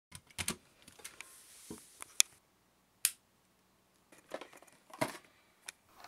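Irregular sharp clicks and clatter of small hard objects being handled, with a near-silent pause in the middle and one sharp click standing out about three seconds in.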